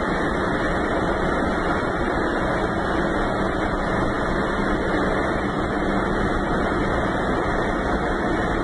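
CPTM 2000-series electric multiple unit pulling away from a station, its traction equipment running with a steady growl and a faint hum.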